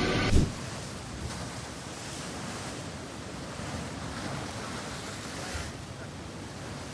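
Ocean waves surging over a rocky shore: a steady rushing wash of surf. A short loud thump sounds right at the start.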